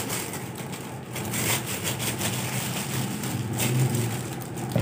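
Thin plastic gloves crinkling and rustling as they are handled and pulled onto the hands, with a steady low hum underneath.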